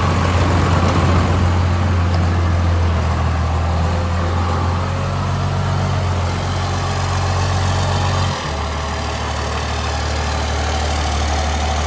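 12-valve Cummins inline-six diesel with a P-pump, swapped into a 1972 Ford F100, running at a slow crawl and idle with a steady low hum. About eight seconds in the note drops suddenly to a slightly lower, quieter idle.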